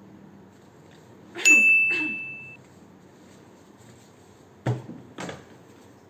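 A bright ding that rings on a single high tone for about a second, followed a few seconds later by two short knocks about half a second apart.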